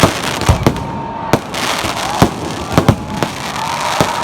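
Fireworks going off: an irregular run of sharp bangs and pops, about a dozen in four seconds, over a continuous crackling hiss.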